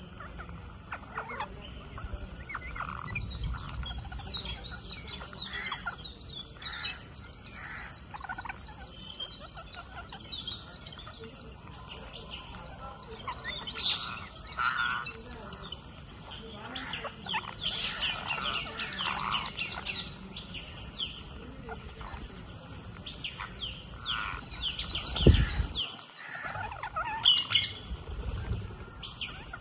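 A flock of rose-ringed parakeets calling constantly, with many short, quickly repeated shrill chirps and squawks overlapping. Near the end there is a single low thump.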